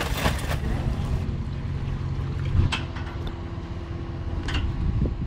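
Pickup truck engine idling with a low, steady hum, with a couple of light clinks about midway and near the end.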